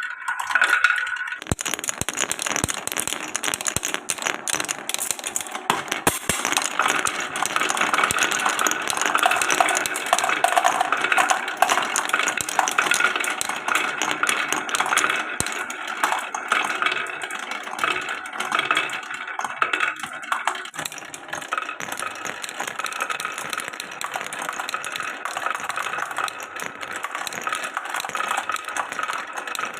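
Many marbles rolling and clattering down a wooden marble run, a continuous dense rattle of small clicks and knocks, busiest in the middle.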